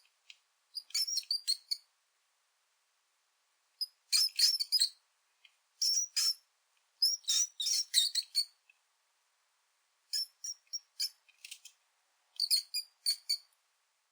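Bursts of rapid, high-pitched chirping squeaks, in about six quick clusters separated by short silent gaps: cat-game sound effects of the kind used for prey such as mice or birds.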